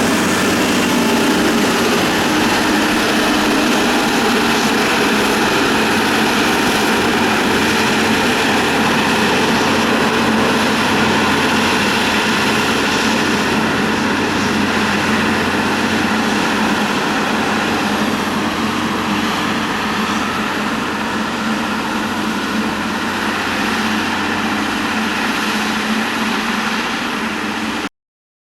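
Motor grader's diesel engine running steadily under load, with a constant low drone. It cuts off suddenly near the end.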